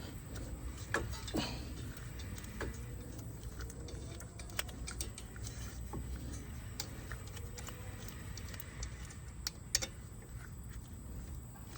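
Scattered light clicks and knocks of small metal parts being handled, over a low steady hum, with a couple of louder knocks about a second in and near the end.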